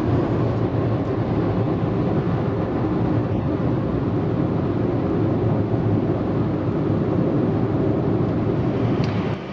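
Steady road and engine noise heard inside a car's cabin while driving through a road tunnel.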